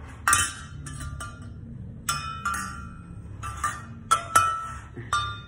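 Metal exhaust parts from a Yoshimura RS-9 kit clinking and tapping together as they are handled and fitted, about nine sharp clinks that ring briefly.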